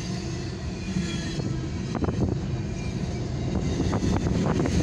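Double-stack container freight train cars rolling past in a continuous low rumble, heard from inside a car. A few sharp clacks come about two seconds in and again near the end.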